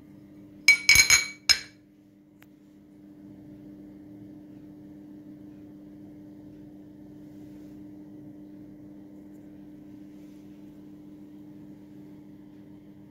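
Ceramic lid of a Serax Misty Grey butter dish clinking: a quick cluster of ringing clinks about a second in, then one more clink half a second later. A steady low hum runs underneath.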